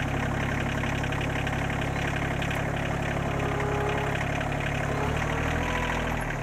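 Rural King RK24 subcompact tractor's diesel engine running steadily at low speed while the front loader raises its bucket; the engine note shifts slightly near the end.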